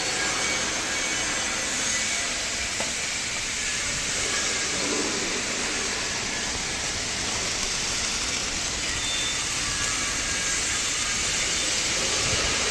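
Steady, even hiss of workshop machinery running, with no clear rhythm or tone.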